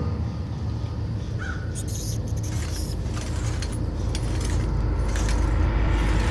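A scary sound-effects track playing: a steady low rumble that grows louder toward the end, with scattered short clicks and knocks over it.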